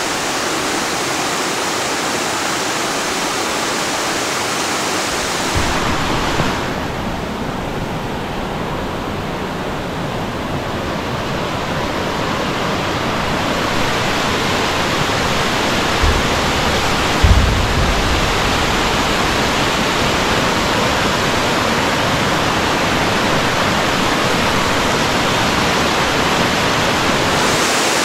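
Mountain stream rushing over rocks and small cascades, a steady loud rush of water. The sound shifts about six seconds in, with less hiss in the highs. Near the middle there are two brief low thumps.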